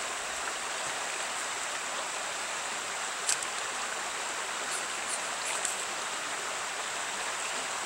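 Creek water running steadily, with a few short, sharp scrapes of a ferro rod being struck onto fatwood shavings, once about three seconds in and several times around five seconds in.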